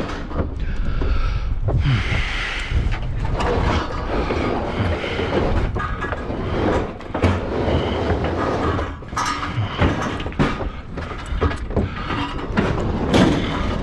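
A heavy scrap metal object dragged and shoved around a pickup truck bed, scraping and clanking with repeated knocks, over a steady low rumble of wind on the microphone.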